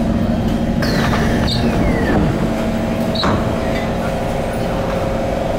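C151 MRT train's traction motors whining down in pitch as the train brakes to a stop, heard inside a motor car; once stopped, a steady hum remains, with two short high blips.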